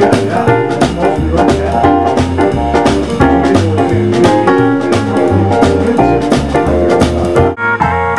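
Live band playing: upright double bass, drums, electric guitar and keyboard, with steady bass notes under regular drum beats. About seven and a half seconds in, the beat drops out and the band holds a sustained chord.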